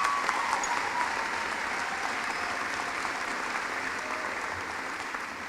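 Large audience applauding, the clapping slowly fading away.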